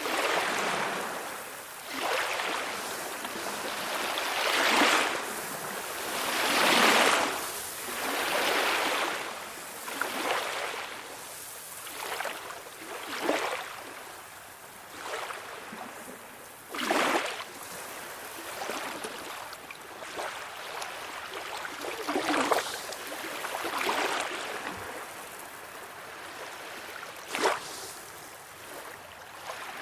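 Calm sea waves lapping and washing, swelling and fading every couple of seconds. In the second half there are a few short, sharper splashes.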